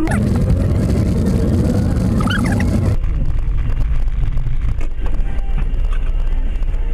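Car on a wet road heard from inside through a dashcam: engine and tyre noise with a loud hiss that cuts off suddenly about three seconds in, leaving a quieter low rumble.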